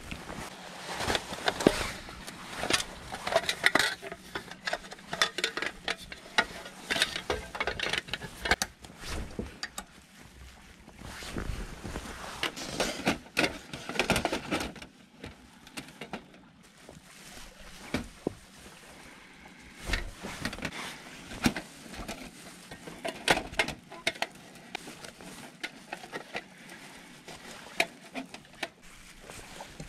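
Thin aluminium camp gear being handled and set up: a folding slatted table and a hinged aluminium windbreak give irregular clanks, clicks and rattles of light metal panels. The handling is busiest in the first half and sparser near the end.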